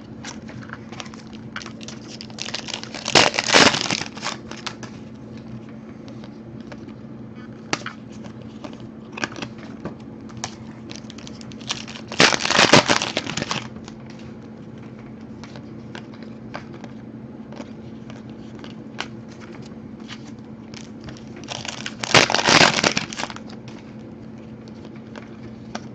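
Trading-card pack wrappers crinkling and tearing in three loud rustling bursts spread evenly across the stretch, with small clicks and ticks of cards being handled in between. A low steady hum runs underneath.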